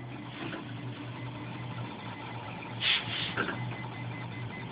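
Stepper motors of a wood-framed RepRap Mendel 3D printer driving the print head and bed during a print: a steady low hum broken by short buzzing moves, the loudest a little under three seconds in.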